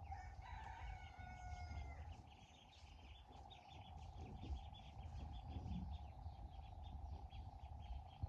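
A rooster crowing once, a held call lasting about two seconds, followed by a fast, even run of short high chirps, about four a second, over a steady hum.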